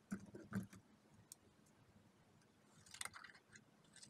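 Faint handling of glossy magazine paper, with a few soft knocks and rustles in the first second, then a short run of crisp scissor snips through the page about three seconds in.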